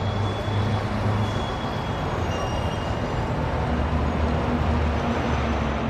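Steady rumbling noise with a low hum, a train- or traffic-like ambient wash forming the intro of a pop song recording before its instruments begin.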